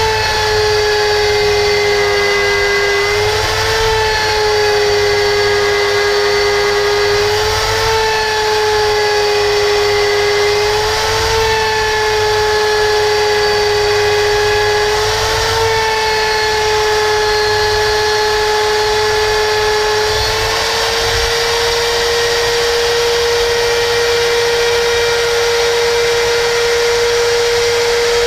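Electric router motor running at high speed while its cutter slots a cast iron brake disc: a loud, steady high whine that briefly rises in pitch about every four seconds. About twenty seconds in the pitch rises and holds higher, as the cutter runs under a lighter load.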